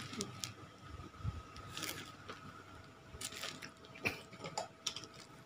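Faint crinkling and tapping of a black plastic-wrapped shipping parcel being handled and turned over, in scattered small crackles, over a faint steady tone.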